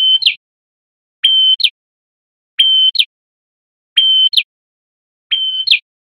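Olive-backed tailorbird (prenjak kepala merah) singing its repeated call about five times: each phrase is a steady high whistle followed at once by a quick downward chirp, about every second and a half.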